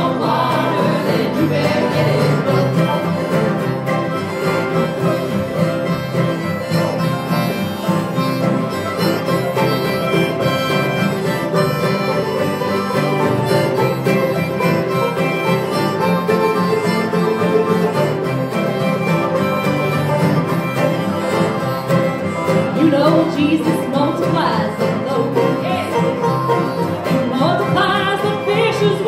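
Acoustic string band playing a bluegrass tune on guitars, mandolin and ukuleles: a mostly instrumental stretch, with singing coming back in near the end.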